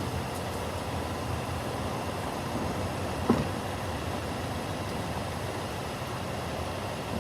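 Car engine idling steadily, with a single short knock about three seconds in.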